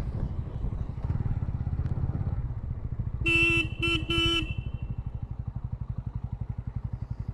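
Motorcycle engine running at low revs with a steady pulsing exhaust, easing off about two and a half seconds in. About three seconds in, the horn gives three short beeps in quick succession, a warning to others that the bike is coming.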